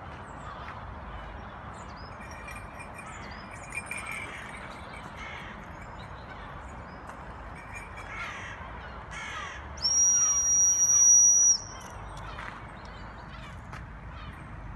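Harsh caw-like bird calls over steady background noise. About two-thirds of the way through, a loud, steady, high-pitched tone sounds for under two seconds and cuts off suddenly.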